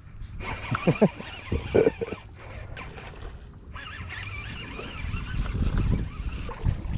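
Baitcasting fishing reel whirring as line is reeled in, then whirring again about four seconds in as the lure is cast out. A low rumble of wind on the microphone runs underneath.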